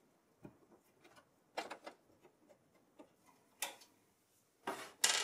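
Scattered faint clicks and taps of a screwdriver backing out the screws that hold a DVD drive in a PC tower's steel drive cage, with a few louder knocks near the end.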